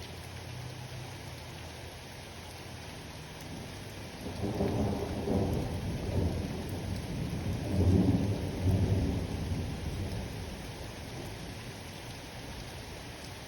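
Steady rain falling while a long roll of thunder rumbles in about four seconds in, swells twice with the loudest peak around eight seconds, then dies away.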